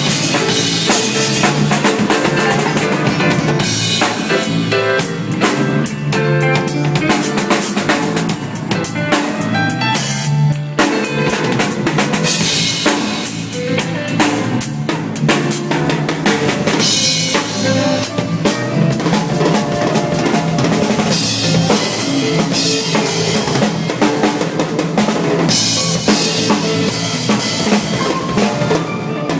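Live jazz fusion jam at a sound check: a drum kit plays a busy groove of bass drum, snare and rimshots, with other instruments holding pitched notes and lines underneath.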